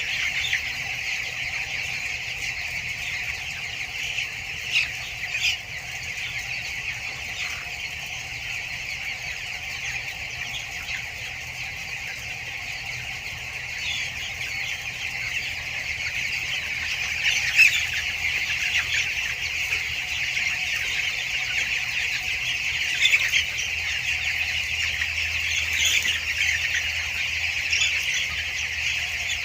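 A large flock of two-week-old broiler chicks peeping and chirping continuously, many calls overlapping into a steady high chatter, with a few louder calls standing out now and then.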